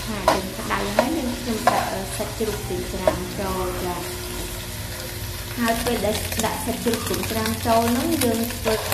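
Diced fatty pork sizzling as it fries in a steel wok, stirred and scraped with a metal ladle, with sharp clicks of the ladle on the pan in the first few seconds and again near the end.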